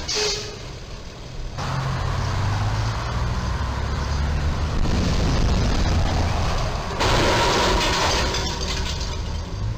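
Road traffic: vehicle engines running as cars pass through the intersection, a low steady rumble. It gets louder and hissier about seven seconds in.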